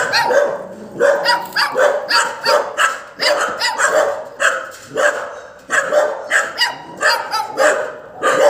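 A dog barking over and over in a steady run of short barks, about two to three a second.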